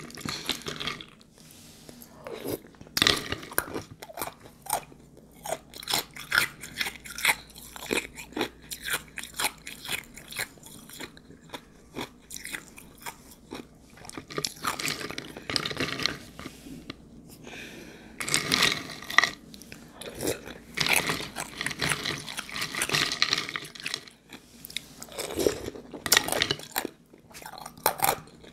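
Close-miked crunching and chewing of ice soaked in juice, in dense crackly bursts with short pauses between mouthfuls.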